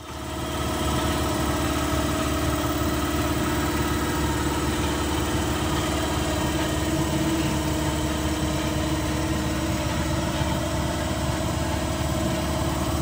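Power polisher motor starts within the first second and runs steadily while polishing an aluminum truck wheel.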